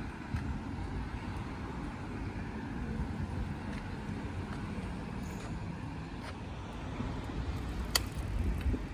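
Street ambience: a steady low rumble of road traffic, with a single sharp click about eight seconds in.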